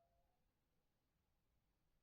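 Near silence: room tone, with the faint end of a drawn-out pitched sound fading out in the first half second.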